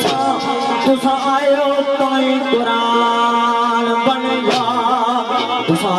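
A man singing sung poetry (sher khwani) into a microphone over instrumental accompaniment, holding drawn-out notes that waver in pitch.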